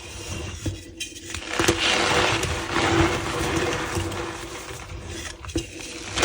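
Reformed gym chalk blocks being squeezed and crumbled by hand, with a crunching, squeaky sound. The crunching swells about one and a half seconds in.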